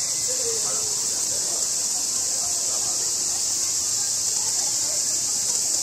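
A steady chorus of cicadas, a continuous high-pitched buzz that never lets up, with faint distant human voices beneath it.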